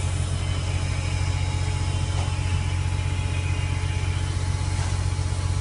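Truck's diesel engine running at a steady speed, driving the hydraulic pump of a TKA 12.700C knuckle-boom crane as it works under radio control: a constant low hum with a faint steady higher tone above it.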